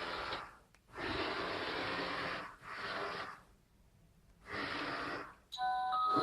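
Panda X500 robot vacuum running its suction motor and side brushes with a steady whooshing hiss, in several stretches broken by short silences. Near the end a few short electronic beeps at different pitches sound.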